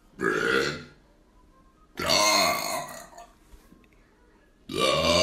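Three loud, drawn-out burps, each about a second long: one right at the start, one about two seconds in, one near the end.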